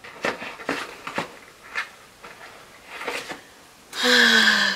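Hands rummaging through stickers and supplies: a series of light taps and paper rustles, then about four seconds in a louder sliding scrape with a faint falling squeak.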